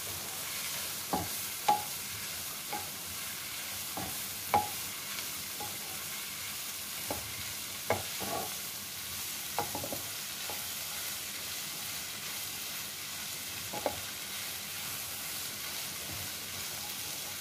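Diced carrots, beans and green peas frying in oil in a nonstick kadai give a steady sizzle while a spatula stirs them. Scattered knocks and scrapes of the spatula against the pan come every second or so at first, then stop about 14 seconds in, leaving only the sizzle.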